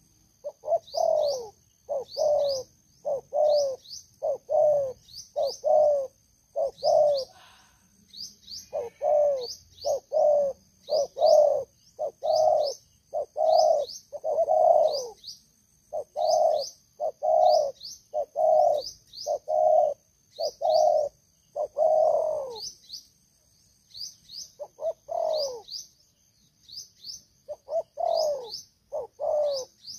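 Spotted dove cooing: runs of short, low coos repeated about one and a half a second, with brief pauses between the runs. A fainter, regular high chirping goes on behind them.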